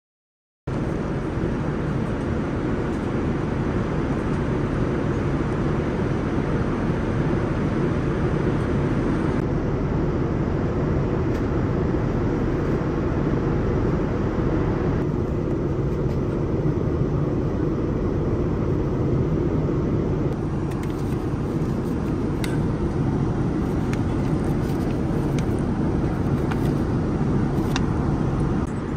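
Steady rushing cabin noise of a Boeing 787-9 airliner in cruise, mostly low rumble from airflow and engines. It starts suddenly about a second in, and a couple of light clicks come near the end.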